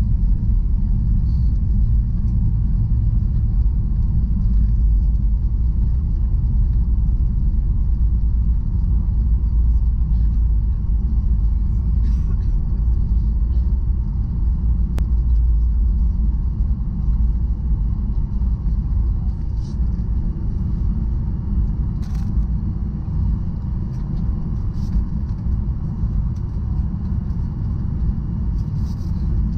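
Steady low rumble inside a Boeing 737 passenger cabin, made by the engines and the airframe, with a faint steady high tone above it.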